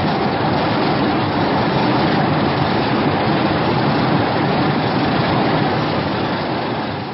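A film sound effect: a steady, dense rushing rumble with no clear pitch, fading out near the end.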